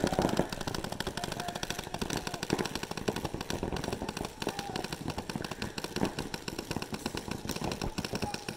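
Paintball markers firing a rapid, continuous stream of shots, dense cracks overlapping with no gaps.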